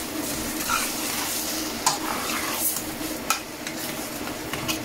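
Chicken keema mince sizzling steadily in a stainless steel saucepan as a metal spoon stirs it, with sharp scrapes and clicks of the spoon against the pan roughly once a second.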